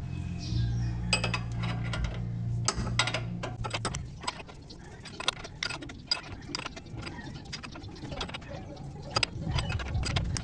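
Repeated metallic clinks and taps of hand tools and metal parts being handled during work on the car. A steady low hum runs under the first few seconds and then fades.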